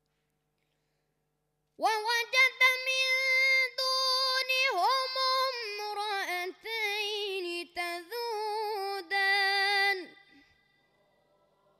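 A boy's high voice reciting the Quran in melodic mujawwad style: long, ornamented held notes with quick pitch turns and trills, starting about two seconds in and ending about ten seconds in.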